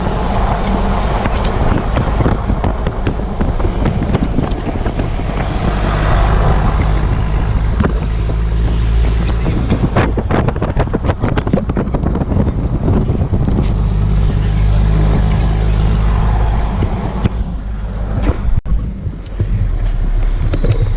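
Four-wheel-drive Toyota Land Cruiser driving on a rough, bumpy dirt track: a steady engine drone with a cluster of knocks and rattles about halfway through.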